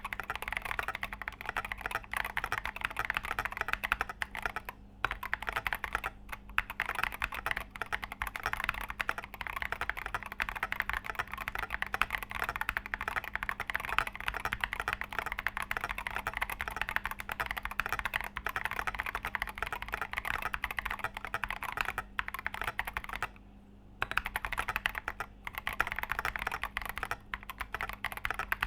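Fast, continuous typing on a stock, unmodified KBD75 v3.1 mechanical keyboard with Tecsee Coffee switches, Cherry screw-in stabilizers and an aluminium plate in a top-mount case: a dense stream of key clacks that breaks off briefly once, about two-thirds through.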